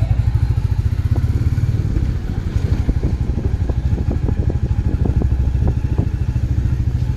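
Royal Enfield 350's single-cylinder engine running with a rapid, even low thump, heard from the bike as it rides off.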